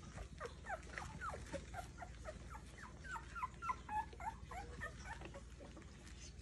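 Two-week-old rough collie puppies whimpering: many short, high squeaks, each falling in pitch, several a second, thickest about three to four seconds in.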